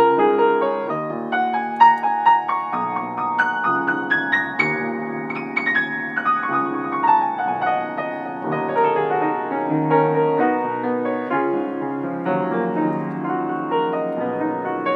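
Solo grand piano playing: chords over a low bass line, with a run climbing up the keyboard from about a second and a half in that comes back down around six seconds in.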